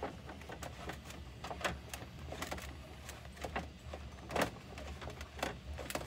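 Spool of PLA filament turning in a MakerBot Replicator+'s filament drawer as the filament is pulled off by hand, giving irregular plastic clicks and rustles over a steady low hum.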